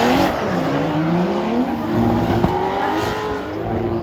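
Drift car engine revving, its pitch rising and falling repeatedly, over a steady hiss.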